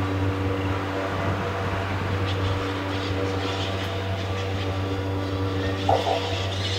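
Steady droning sound-installation texture: a low hum with many held tones stacked above it, unchanging throughout. A brief higher sound cuts in about six seconds in.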